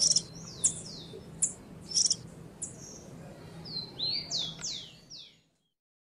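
Small songbird chirping: short, high, down-slurred chirps in a loose series, then a quicker run of falling notes that stops about a second before the end.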